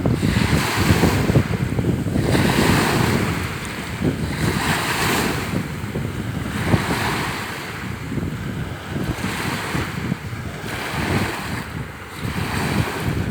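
Sea surf washing onto the shore in repeated swells about every two seconds, with strong wind buffeting the microphone in a constant low rumble.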